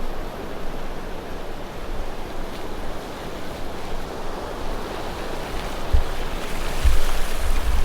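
Ocean surf washing onto the beach, with wind buffeting the microphone in low rumbling gusts that grow heavier over the last couple of seconds.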